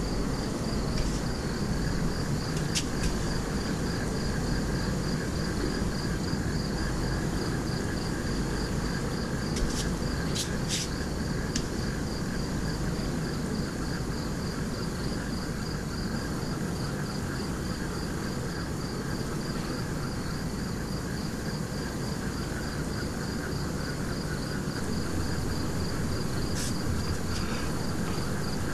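Crickets chirping steadily in a fast, even pulsing trill over a low background hum, with a few faint clicks.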